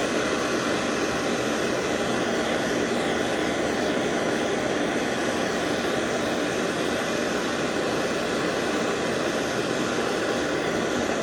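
Handheld gas torch burning steadily with a constant rushing hiss while it heats a piece of metal.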